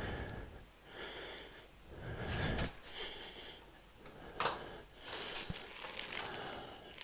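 A person breathing close to the microphone, several audible breaths in and out, with one short sharp knock about four and a half seconds in.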